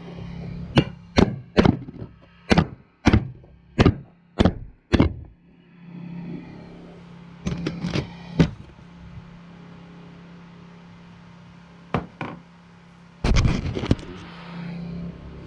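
Hammer strikes while extracting broken engine bolts: a quick run of about eight blows in the first five seconds, then a few more scattered blows later on. A steady low hum runs underneath.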